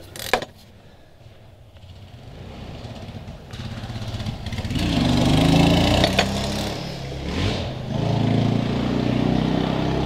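An engine running in the background, coming in from about four seconds in and staying steady and fairly loud from then on. A short click right at the start.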